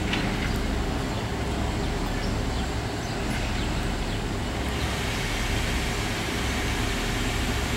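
Chicago North Shore and Milwaukee electric interurban cars rolling past on the track, a steady rumble of wheels on rails.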